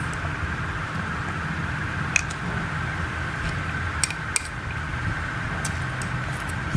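Bamboo chopsticks tapping and clicking against a ceramic plate, a few sharp clicks with the loudest about two seconds in and a pair near four seconds in, over a steady background hum.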